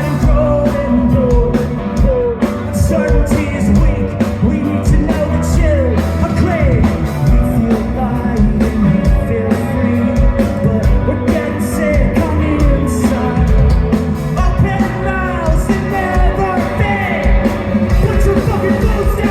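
Rock band playing live at a steady loud level, with drums and a singing voice over the band.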